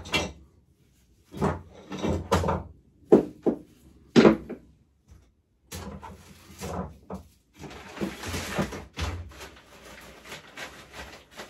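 Metal clinks and knocks of hand tools and bike parts being handled while a nut and washer are refitted on a pit bike's top yoke, a dozen or so separate strikes, with a brief rushing noise about eight seconds in.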